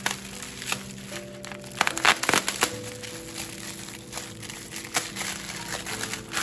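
Background music with held notes, over the crinkling and crackling of a ham's metallic plastic wrapper and netting as a knife cuts them away, loudest about two seconds in.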